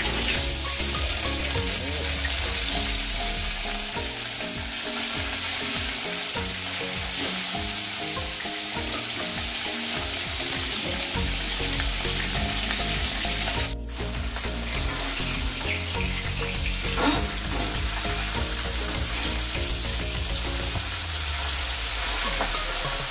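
Whole tarli fish, coated in salt and turmeric, sizzling steadily as they fry in hot oil in a kadhai, with the odd stir of a spatula. The sizzle briefly cuts out a little past halfway.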